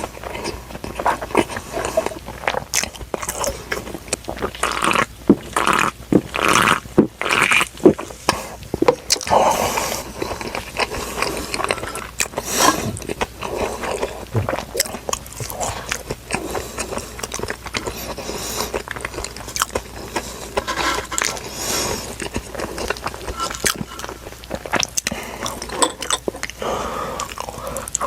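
Close-miked eating of fast food: irregular crunchy bites and chewing, with small mouth clicks and scrapes.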